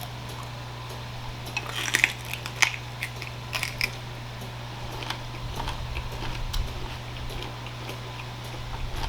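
Close-up eating sounds: chewing and crunching of a chicken lettuce wrap, with a burst of crisp crackling crunches from about one and a half to four seconds in. Softer chewing follows over a steady low hum.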